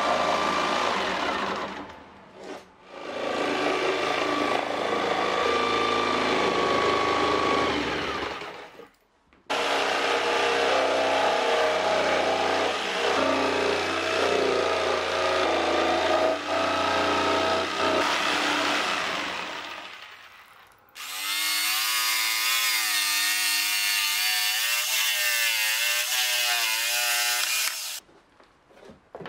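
Electric jigsaw running and cutting through an OSB sheet, stopping briefly twice. After it stops, a different wavering, pitched whine lasts for several seconds near the end.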